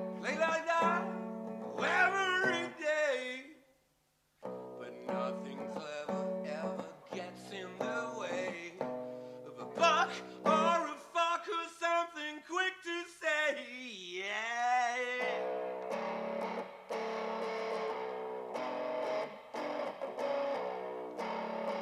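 Guitar music: picked notes in a repeating pattern with a gliding melody line over them. It cuts out briefly about four seconds in.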